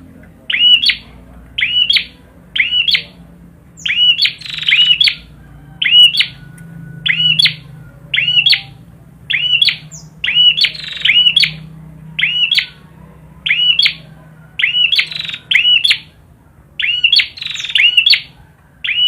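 A perenjak (prinia) songbird calling vigorously. It repeats loud, sharp groups of two or three high chirps about once a second, over a faint steady low hum.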